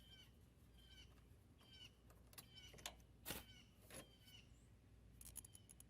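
Faint bird chirps, short calls repeating about once a second, with a few light clicks.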